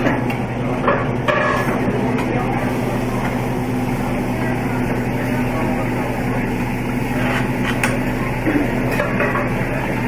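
Hibachi restaurant noise: a steady hum and dense background clatter, with a few sharp metallic clicks of the chef's spatula on the griddle.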